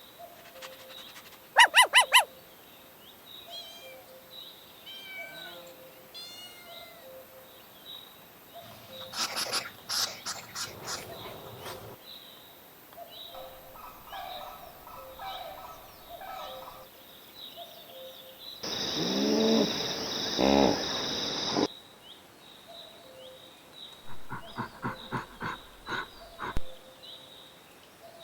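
A string of different animal calls one after another: short chirps and cries, a loud rising call about two-thirds of the way through, and a quick rhythmic series of calls near the end.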